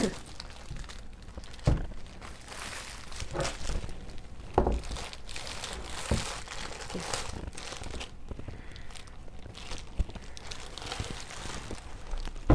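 Clear plastic sleeve crinkling and rustling as it is pulled off a metal Gold Play Button plaque, with a few short knocks along the way and a sharper one at the end.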